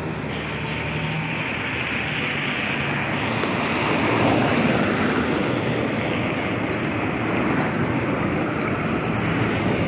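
A steady rushing of wind over the microphone together with a low engine hum, as from a moving vehicle, swelling slightly about four seconds in.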